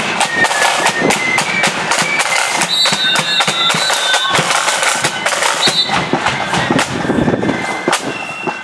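Marching band playing a tune: high, shrill wind instruments carry a melody of held notes over many quick side-drum strokes.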